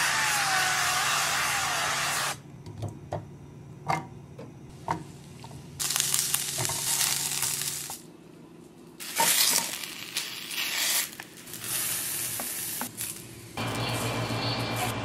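Sliced vegetables sizzling as they pan-fry in a ceramic frying pan. The sizzle comes in several stretches of a couple of seconds each, with sharp clicks of tongs in the quieter gaps. Near the end a steady hum takes over.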